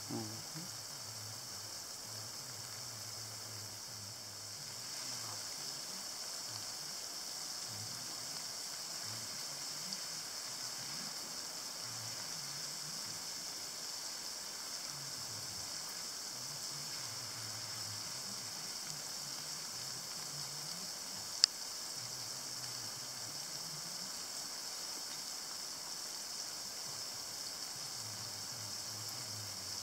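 Lawn sprinkler spraying water, a steady hiss. One sharp click comes about two-thirds of the way through.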